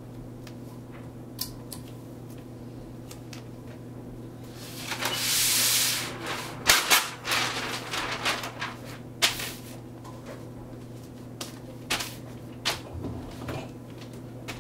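Sublimation transfer paper and heat tape being handled on a hoodie: paper rustling and crinkling, with a longer rasping sweep about five seconds in, like tape pulled off a roll, followed by a flurry of short rustles and taps. A steady low electrical hum runs underneath.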